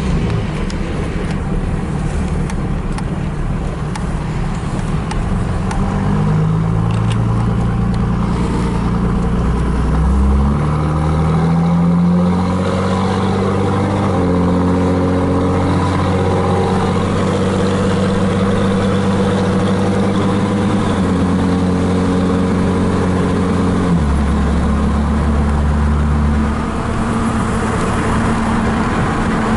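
Car engine and road noise while driving. The engine's pitch rises and falls in several steps over the stretch.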